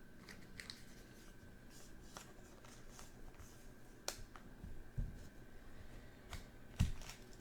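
Trading cards being handled: faint slides and a scattering of short clicks and taps as the cards of an opened pack are flipped through one at a time.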